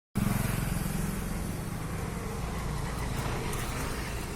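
Steady low rumble of a running engine with a constant deep hum.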